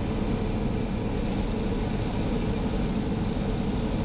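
Piper PA-28 Archer's four-cylinder piston engine and propeller droning steadily, heard inside the cabin during the final approach to land.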